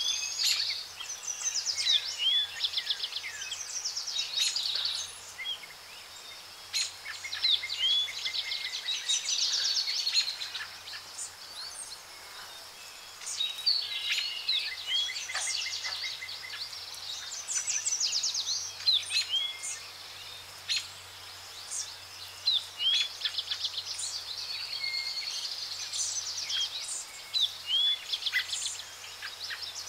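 Songbirds singing in woodland: fast high trills and short sweeping chirps, repeated in phrases every few seconds, over a light background hiss.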